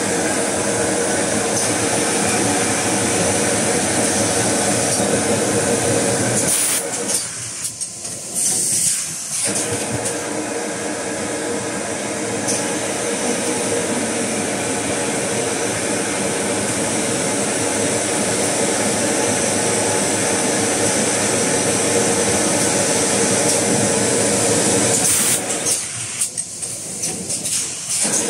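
Automatic tissue-roll wrapping machine for 6- and 12-roll packs of toilet paper and kitchen towel running: a steady, dense mechanical noise with hiss. Twice it eases off briefly after a short higher hiss, about seven seconds in and again near the end.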